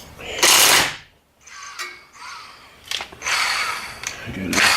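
Impact wrench running in two short bursts, about a second long each, a couple of seconds apart, spinning off the tie rod end nut.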